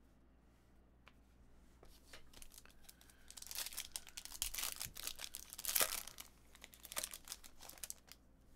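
Trading-card pack wrappers being torn open and crinkled, a crackly rustle that builds about two seconds in and dies down near the end.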